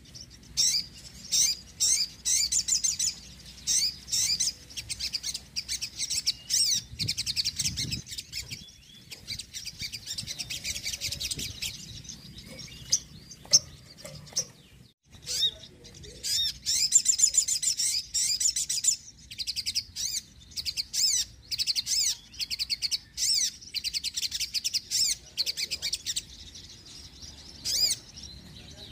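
Sogon bird singing energetically: fast runs of high, trilling chirps in repeated bursts, with a short break about halfway through.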